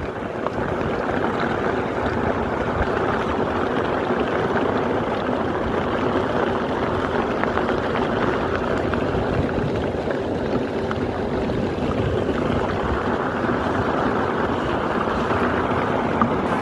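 Small boat under way, its motor running steadily with water rushing past.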